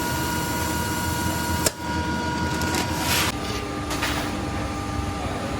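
Factory machinery running with a steady hum and a thin, steady whine, and one sharp click partway through. A little past halfway the whine drops to different pitches.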